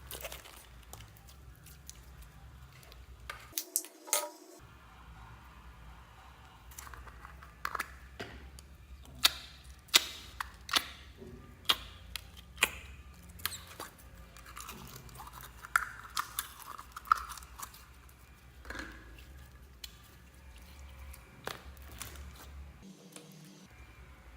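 Slime being squished and mixed by hand: irregular sticky pops and crackles, with a faint steady low hum underneath.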